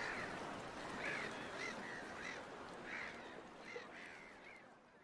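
A bird calling again and again, short rising-and-falling calls about two a second, over a steady background noise that fades out near the end.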